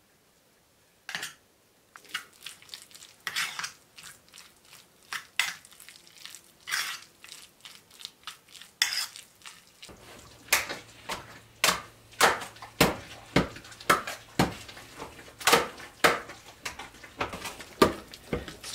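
A fork scraping and tapping in an enamel bowl as food is mixed by hand, in irregular strokes. About ten seconds in, thick pea porridge is stirred in a large metal pot with a wire stirrer, a steady squelching scrape about two strokes a second over a low hum.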